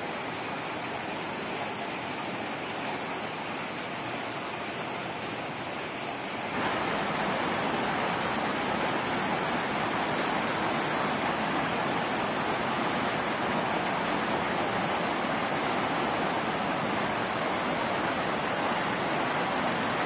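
Mountain creek rushing white over boulders, a steady rush of water that steps up louder about a third of the way in.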